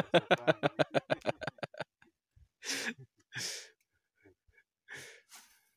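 A man laughing in a quick run of pulses that stops about two seconds in, followed by four short breathy hisses.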